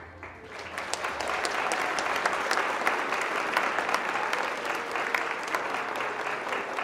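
Audience applause: many hands clapping, starting just as the music stops and building within about a second, then holding steady.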